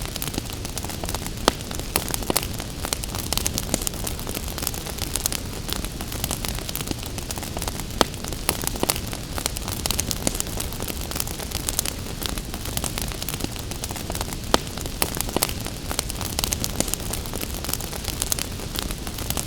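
Wood fire in a fireplace crackling with irregular sharp pops over a steady rushing hiss of gentle rain; a few pops stand out louder, about a second and a half in, around eight seconds and near fifteen seconds.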